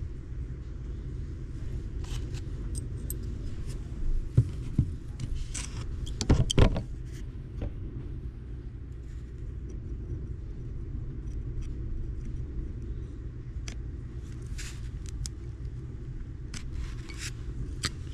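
Small metal clicks and clinks as snap ring pliers and loose gears are worked on a YZ250F dirt bike engine's transmission shaft, with the sharpest clinks about four and six and a half seconds in, over a steady low hum.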